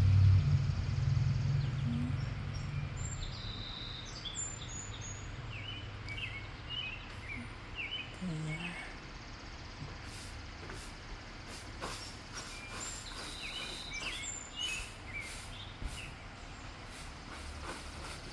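Small birds chirping, with short high calls scattered throughout. A low rumble fades out over the first few seconds, and there are a few soft clicks later on.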